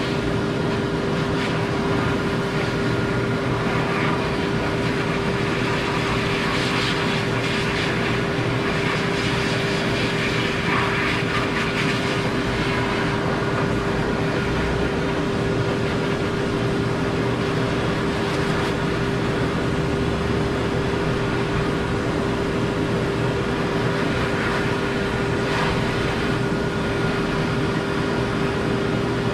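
Forced-air pet grooming dryer blowing steadily, a constant rushing air noise with a steady hum through it.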